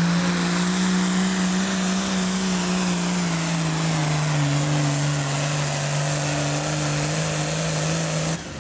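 Allis-Chalmers D21 super farm pulling tractor's engine running flat out under load while pulling the sled, its pitch sagging slowly as the load builds. It cuts off abruptly near the end.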